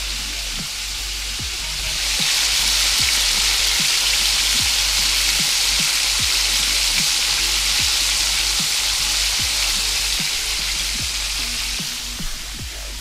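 Walleye fillets frying in a pan of hot oil, a steady sizzle that grows louder about two seconds in and eases near the end.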